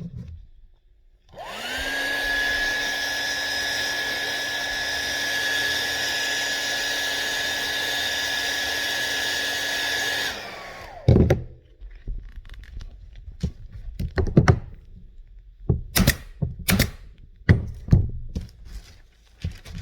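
An electric motor-driven machine whirs steadily with a hair-dryer-like rush and a steady whine for about nine seconds, spinning up at the start and winding down as it stops. After that come a dozen or so sharp, irregular knocks and clicks.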